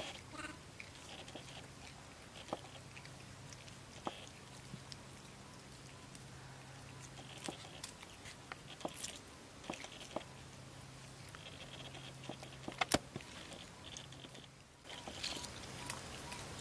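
Vervet monkeys chewing and nibbling on sweet potato: faint, scattered small crunches and clicks, with a louder cluster of clicks about thirteen seconds in.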